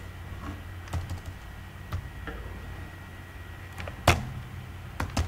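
Computer keyboard keys clicking: a handful of separate keystrokes, spaced out rather than in a fast run, the loudest about four seconds in.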